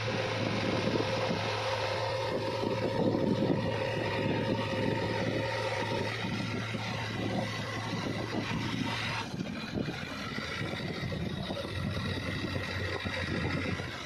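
JCB 3DX backhoe loader's diesel engine running steadily as the machine drives along on the road, a low, even engine hum. The sound changes abruptly about nine seconds in.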